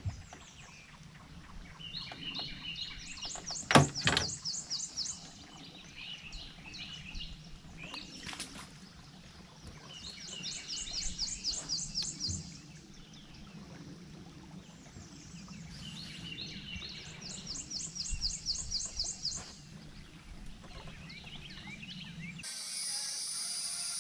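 A songbird sings the same fast, high trilled phrase three times, several seconds apart, with shorter chirps between. A low steady hum runs underneath. A single sharp knock comes about four seconds in, and music starts abruptly near the end.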